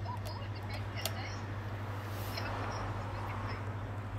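Steady low electrical hum with a few light clicks about half a second and a second in, as fingers press flex-cable connectors onto an iPhone 7's logic board.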